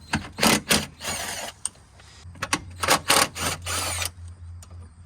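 Metal hand tools clattering and rattling in a run of short bursts, the kind of sound made handling sockets and a ratchet, with a low steady hum starting about halfway through.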